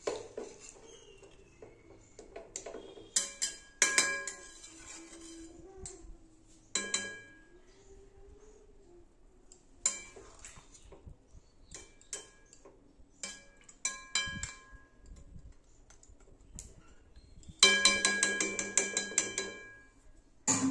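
Metal spatula clinking and scraping against a metal cooking pan while stirring a thick mutton curry: scattered single clinks that ring briefly, then a dense run of rapid scraping and clinking near the end.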